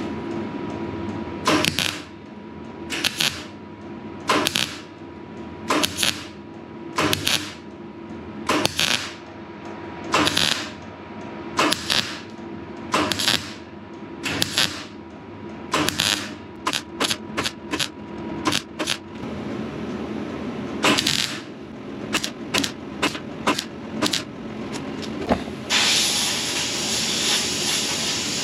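MIG welder tack-welding the steel sheet panels of a Unimog cab: short bursts of arc, at first about one every second and a half, then a run of quicker, shorter tacks. About two and a half seconds before the end a steady hiss sets in and holds.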